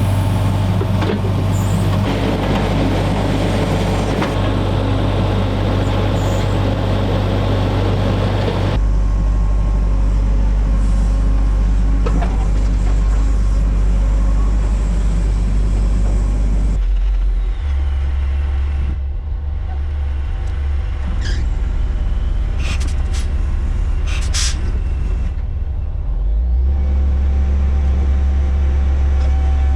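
Engine of a digging machine running steadily while excavating a ditch, its note shifting a few times as the load changes. A few sharp knocks come a little past the middle.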